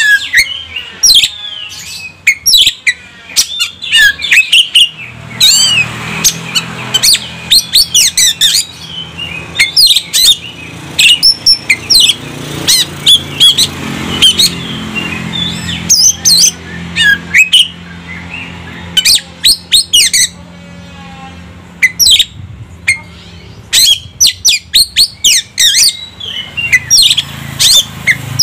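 Male Oriental magpie-robin singing a loud, varied song: a fast stream of sharp whistled notes, pitch glides and short rapid trills with few pauses.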